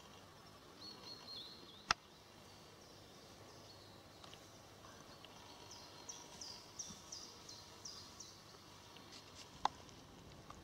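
Quiet woodland ambience with a small bird calling: a run of short, falling high chirps, about three a second, through the middle. Two sharp clicks stand out, one about two seconds in and one near the end.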